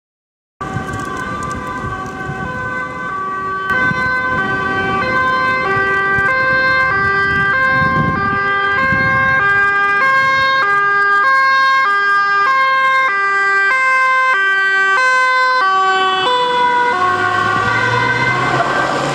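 Dutch police two-tone sirens of two approaching police vehicles, alternating high and low notes about every two-thirds of a second and growing louder. Near the end the notes drop in pitch as a vehicle passes, and its engine is heard underneath.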